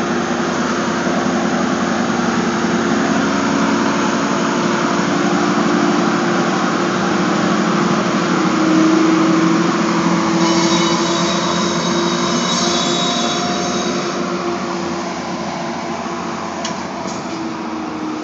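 Metro-North BL20GH diesel locomotive running past with its passenger coaches: a steady engine drone over rolling wheel and rail noise. A high squeal joins for a few seconds midway, and the sound slowly fades near the end as the train moves off.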